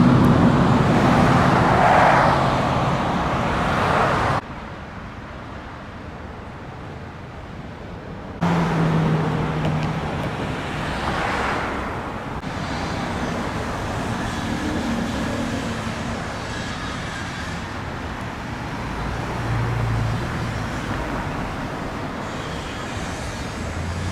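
Street traffic: cars passing by with a steady road rumble. The sound drops abruptly about four seconds in and comes back just as suddenly about four seconds later.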